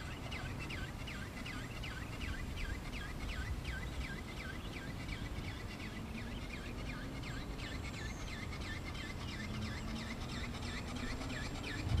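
Electric motor and gearbox of an ATW 'Seagull' RC ornithopter whining in flight, the pitch dipping and recovering with each wingbeat about three times a second, over wind rumble on the microphone. A low thump at the very end.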